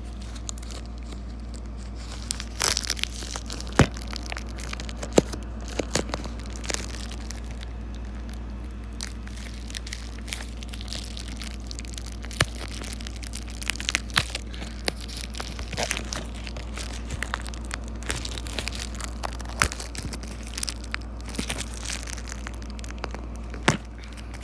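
White plastic bubble mailer crinkling and rustling as it is handled and pulled open, with many irregular sharp crackles.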